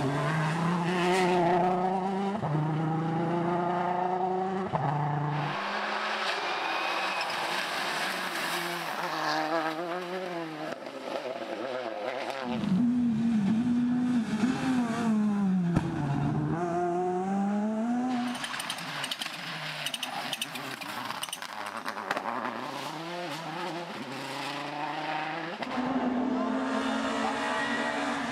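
Rally cars driven hard, one after another: their engines rev up and fall back repeatedly through gear changes and lifts off the throttle. The sound jumps from car to car every few seconds.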